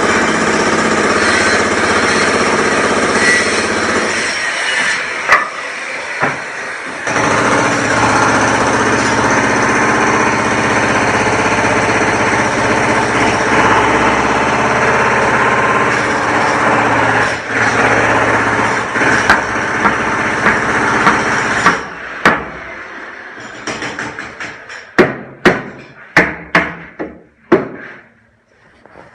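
Construction-site machinery running loudly and steadily, then giving way to a run of separate sharp hammer blows, about one to two a second, over the last several seconds.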